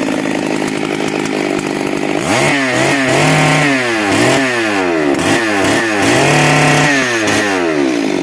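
Stihl 382 two-stroke chainsaw engine idling, then revved up and down several times from about two seconds in, held at high revs twice. It is running after a full service with a new cylinder and piston.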